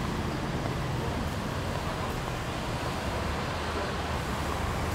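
Steady city traffic noise: an even, low rumble of passing vehicles with a hiss over it.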